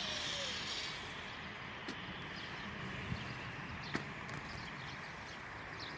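Engine of a plowing machine running steadily, with a few light clicks and knocks over it.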